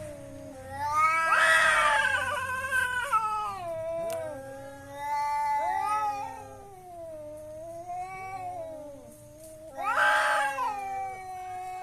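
Domestic cats in a fight standoff, yowling in long, wavering, drawn-out calls, flaring into loud harsh screeches about a second in and again near the end.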